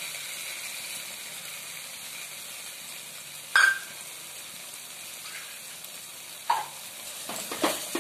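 Spice paste sizzling in hot oil in a non-stick pan while cashew paste is stirred into it with a wooden spoon. The spoon clacks sharply against the pan about three and a half seconds in, again near six and a half seconds, and a few times near the end.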